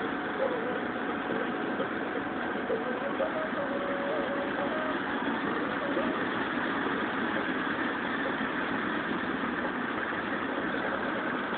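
Steady engine and road noise inside a car's cabin while cruising along a highway.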